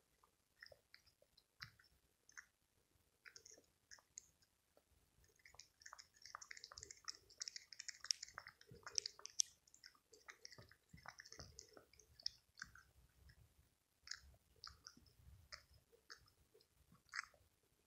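A cat lapping milk from a shallow bowl: soft, quick wet tongue clicks in irregular runs, busiest in the middle.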